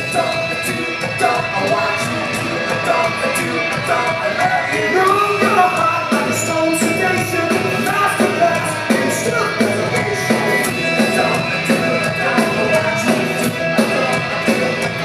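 Live rock band playing a song, with a steady drum beat under the guitars.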